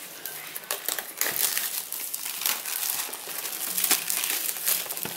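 Clear plastic film being peeled and crinkled off a product box, a continuous crackling.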